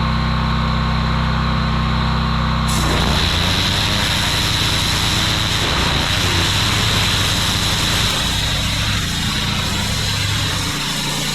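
Engine-driven pressure washer running steadily. About three seconds in, the high-pressure spray starts: a loud hiss of water jetting onto the mossy driveway joins the engine, which changes note as it takes the load.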